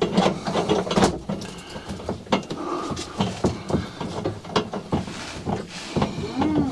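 Irregular knocks, clicks and rubbing from hands and tools working on a microwave's mounting hardware.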